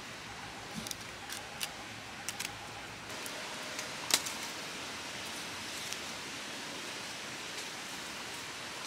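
Crisp moringa drumstick pods being cut with a knife and snapped by hand: a handful of short sharp snaps, the loudest about four seconds in, with faint rustling of the fibres being peeled off, over a steady outdoor hiss.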